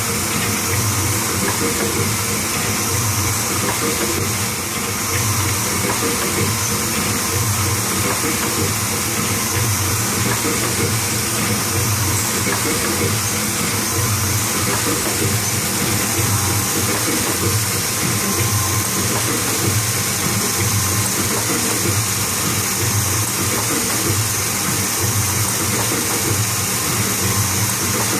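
Kluge EHD 14 x 22 foil stamping and die-cutting press running: a steady mechanical din with a hiss of air and a slow, regular pulse as the press cycles.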